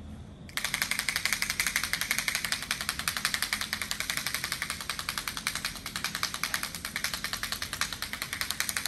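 Handheld sound-trigger device giving a rapid, even ticking, switched on about half a second in and running steadily, used as a sound cue while tapping a horse's side.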